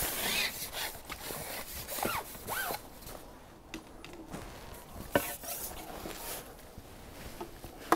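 Landing net and fishing tackle being handled: rustling, rubbing and scraping, with a few sharp clicks.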